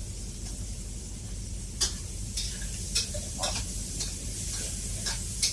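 Stir-frying in a wok over high heat: the food sizzles steadily, and the spatula knocks sharply against the wok five times.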